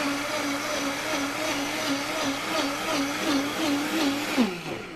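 Kitchen blender running, puréeing fresh tomatoes, its motor hum wavering slightly; near the end it is switched off and the motor winds down, the pitch sliding down as it stops.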